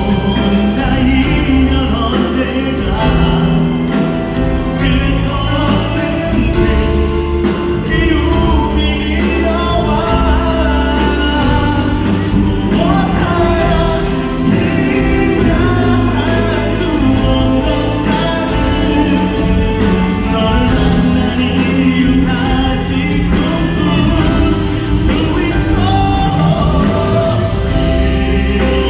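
Live concert music: a band playing with singing over it, heard from within a large hall.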